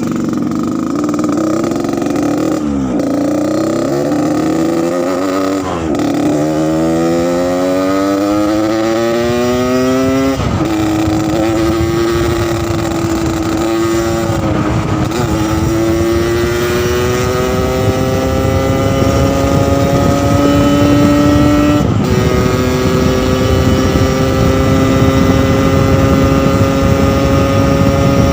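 Yamaha RX-King two-stroke motorcycle under way, with its deep 'ngorok' (snoring) exhaust note. The engine pitch climbs steadily in each gear and drops back at each of several gear changes.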